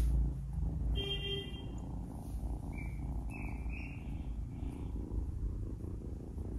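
Kitten purring in a steady low rumble while playing with fingers. There are brief, faint high-pitched tones about a second in and again around three seconds in.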